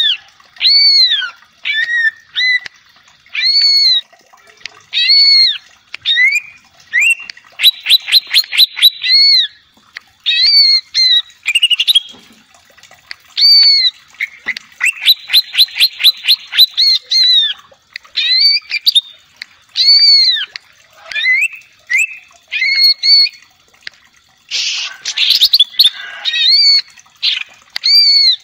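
Male greater green leafbird (cucak ijo) singing loudly: a string of clear, arching whistled phrases, broken twice by fast trills of rapidly repeated notes, and a short harsh, rasping burst near the end.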